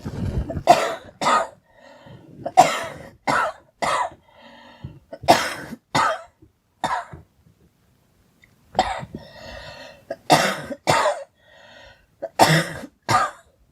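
A girl coughing repeatedly: about a dozen sharp coughs in fits of two or three, with quieter breaths between the fits.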